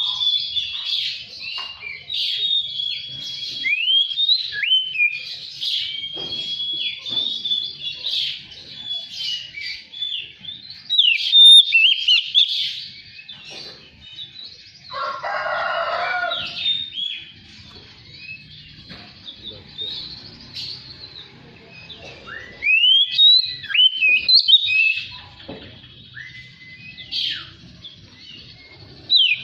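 Oriental magpie-robin (kacer) singing a varied run of clear whistles, rising and falling glides and quick chirps. About halfway through comes a harsher, lower grating call lasting a second or so.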